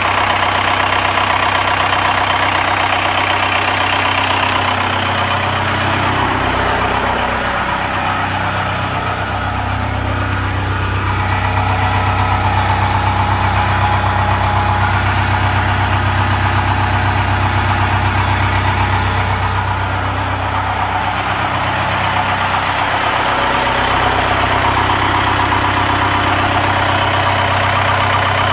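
Freshly rebuilt Cummins 4BT four-cylinder turbodiesel running at idle on its first run after the rebuild. Its speed shifts twice, about a quarter of the way in and again past two-thirds of the way.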